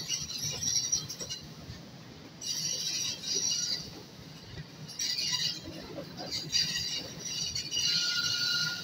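Passenger train rolling slowly over a low rumble, with repeated bursts of high-pitched squeal from the wheels on the rails, each lasting about a second.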